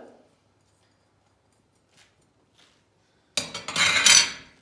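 Near silence with a couple of faint clicks, then, about three seconds in, a loud scraping clatter of kitchenware on the worktop lasting about a second.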